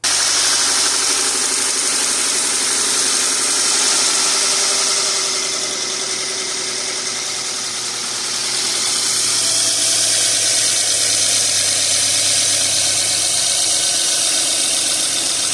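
2013 Subaru Impreza's flat-four engine idling steadily, freshly refilled with new oil, with a steady hiss over the running.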